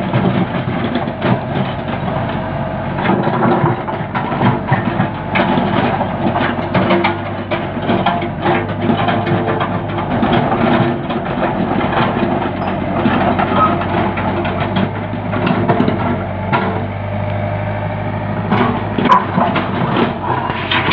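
Komatsu backhoe's diesel engine running steadily, with many irregular knocks and clatters from the machine at work.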